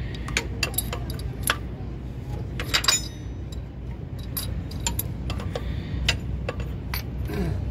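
Metal clinks and taps of an open-end spanner on the fuel-system fittings of a diesel truck engine, scattered through, with a quick run of clinks about three seconds in. A steady low hum runs underneath.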